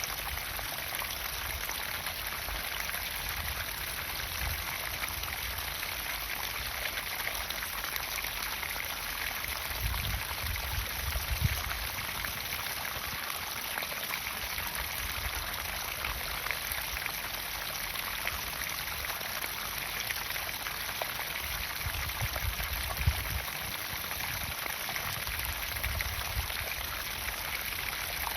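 Water pumped into a garden pond, splashing and trickling steadily into the water, with a few brief low rumbles about ten seconds in and again later on.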